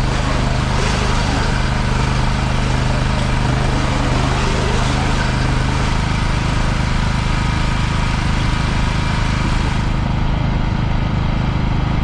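Engine running steadily while a Tube-Line inline bale wrapper wraps a round haylage bale in plastic film, its hoop turning around the bale.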